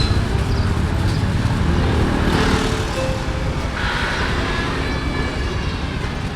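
Street traffic noise: a steady low rumble with brief louder swells of passing vehicles, about two and a half and four seconds in.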